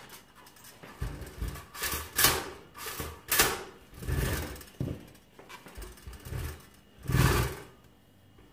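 Hands handling and turning a two-slice toaster on a table: a string of knocks, bumps and rubs against its metal housing, with a longer rubbing noise near the end.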